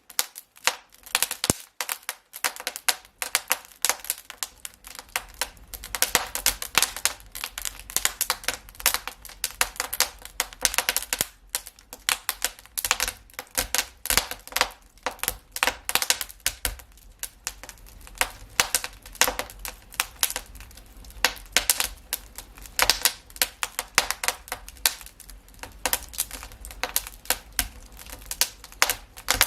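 Fire crackling in a fireplace: a dense, irregular run of sharp snaps and pops over a low steady rumble.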